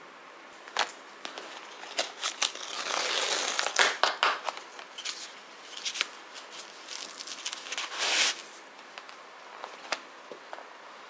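Paper tissues being handled and drawn from a cardboard tissue box through its plastic-film slot: crinkling and rustling with sharp little clicks and taps. The loudest rustles come about three to four seconds in and again around eight seconds, then it goes quiet.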